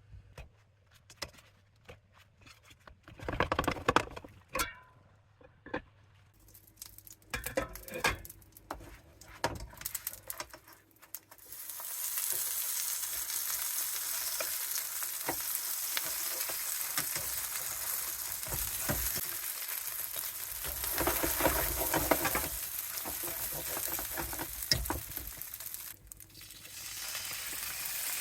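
Scattered knocks and clatter of cookware, then from about twelve seconds in a steady sizzle of aburaage pouches stuffed with gyoza filling frying in oil in a frying pan. The sizzle dips briefly near the end and comes back.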